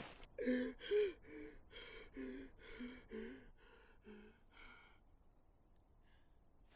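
A man sobbing in short, gasping breaths, about ten in a row, growing fainter and stopping about five seconds in.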